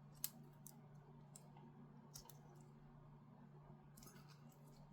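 Small plastic clicks of a motor lead's connector being handled and plugged into the drone's flight controller, one sharp click about a quarter second in and a few fainter ones after, over a low steady hum.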